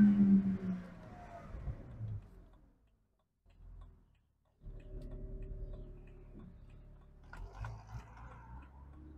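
BMW N52 straight-six engine heard from inside the cabin, its drone fading away as the car comes off the throttle. The sound drops out for about a second and a half, then the engine returns at a steady light cruise with faint ticks in the second half.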